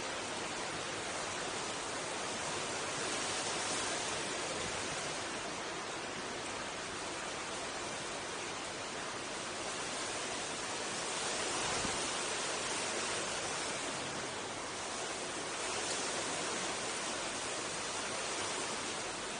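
Wind rushing steadily, swelling in gusts a few times.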